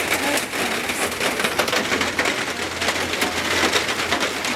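Heavy rain pelting down hard, a dense hiss full of many fine sharp hits.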